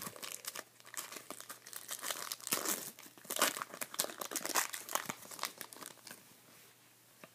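Foil wrapper of a Topps Chrome football card pack being torn open and crinkled by hand: a dense run of crackling that dies down about six seconds in.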